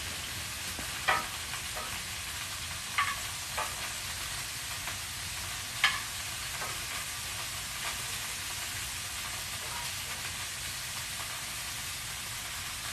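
Bacon sizzling steadily as it fries on a portable griddle, with a few sharp clicks about a second, three seconds and six seconds in.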